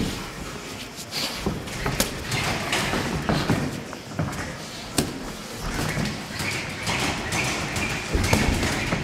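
Boxing sparring: gloved punches thudding and smacking, with the shuffle of feet on the ring canvas. The sharpest smacks come about two and five seconds in.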